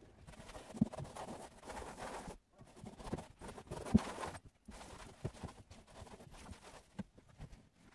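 Cloth wiping a car's plastic dashboard: soft, patchy rubbing with a few light knocks, the sharpest about four seconds in.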